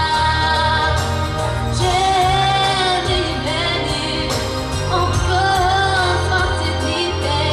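A young female vocalist singing a pop song through a microphone and stage speakers over a backing track with a steady bass line; she holds several long notes with vibrato.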